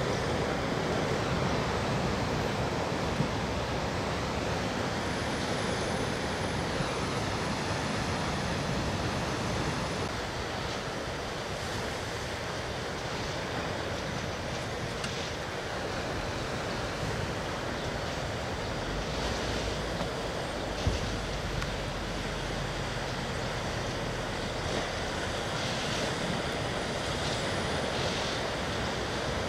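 Steady rushing outdoor background noise with no distinct source standing out, and two brief faint ticks, one about three seconds in and one about twenty-one seconds in.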